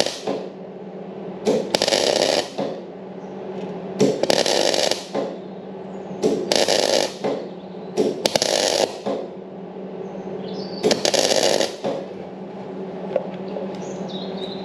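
Clarke MIG welder laying short stitch welds: five bursts of arc crackle of about a second each, with a steady hum between them. The weld is spattering a bit from rust left underneath.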